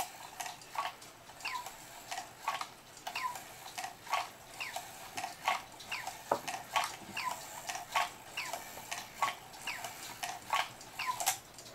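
Black Forest cuckoo clock movement ticking steadily, with a small click about every two-thirds of a second.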